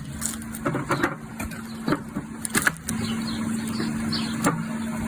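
A machine's motor running with a steady hum, with about five sharp knocks or cracks over it at irregular moments.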